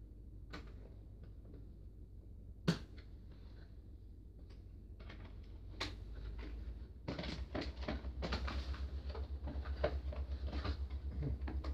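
Scissors snipping and clicking as toy parts are cut free from a cardboard packaging tray, with one sharp snip a few seconds in. From about seven seconds in, a dense run of quick clicks and rustling as the parts and packaging are worked loose by hand.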